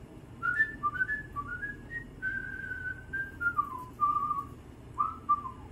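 A person whistling a tune: a run of short notes with one longer held note a little past two seconds in, then falling notes.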